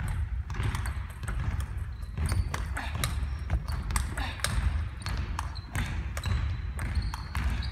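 Table tennis rally: the celluloid-style plastic ball clicking off the rubbers and bouncing on the table in quick, irregular ticks, with one player returning forehand chops. A steady low rumble runs underneath.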